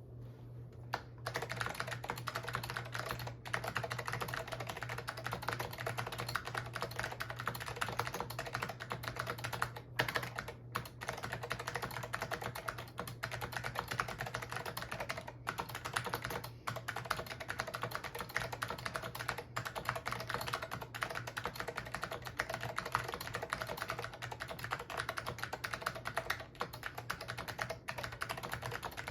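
Continuous fast typing on an Apple Extended Keyboard fitted with Alps SKCM Amber click switches: a rapid stream of clicky keystrokes that starts about a second in, broken by brief pauses. A steady low hum runs underneath.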